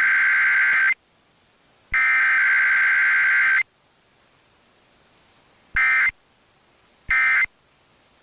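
Emergency Alert System digital header tones played over a radio broadcast as a weekly test: the end of one long burst of harsh electronic data warble, a full second burst of about 1.7 s, then after a pause of about two seconds two short end-of-message bursts about a second apart.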